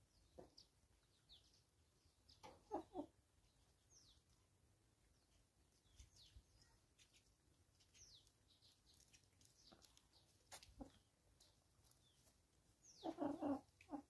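Chickens clucking in short low calls, once about three seconds in and louder near the end, with scattered faint high chirps between; otherwise quiet.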